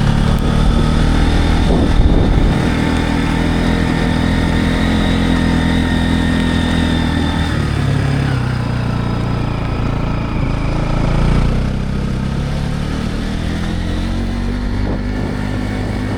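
Motorcycle engine running under way, its pitch shifting about halfway through and again a few seconds later.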